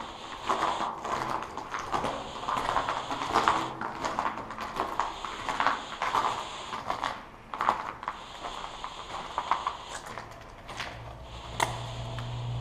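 Footsteps crunching over plaster grit and broken debris on a floor, an irregular step every half second to a second. Near the end the steps stop, a low steady hum comes in and there is one sharp click.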